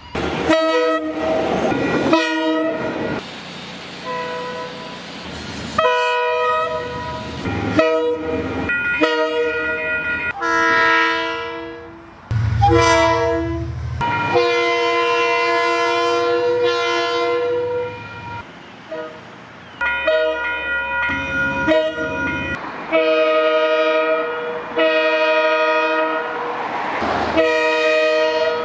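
KiwiRail locomotive horns sounding a chord of several tones, in a string of separate blasts cut back to back: some short toots, some held for a few seconds, with the rumble of a passing train under some of them.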